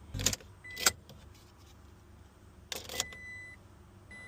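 A few sharp plastic clicks and two short high electronic beeps during car key programming.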